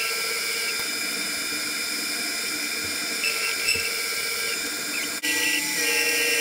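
Chinese mini lathe running with a steady motor and gear whine while a facing tool cuts across the end of a metal workpiece, throwing off stringy swarf. About five seconds in the sound breaks sharply and resumes slightly louder with a changed pitch.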